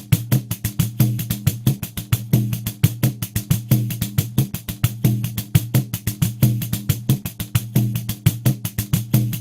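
Pandeiro playing a steady samba groove at 90 BPM: a constant run of jingle strokes, about six a second, with deep thumps of the drumhead on the beat.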